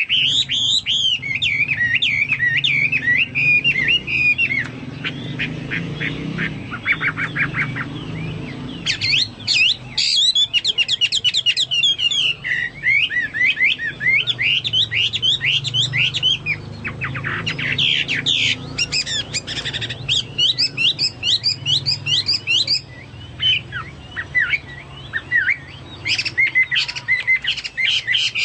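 Chinese hwamei singing a loud, varied song of slurred whistles and rapid trills, in long bursts broken by a few short pauses.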